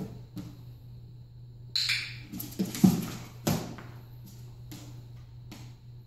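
A dog's paws knocking on a plastic tub used as a training platform: a few thumps about halfway through as it steps up, over a steady low hum.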